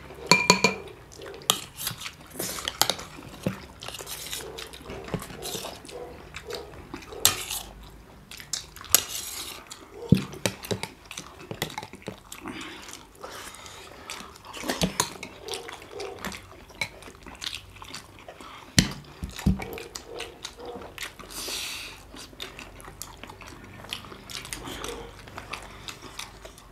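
Chopsticks and a spoon clicking and scraping against steel plates and bowls in scattered, irregular taps, amid eating noises of chewing and slurping soupy jhol momos.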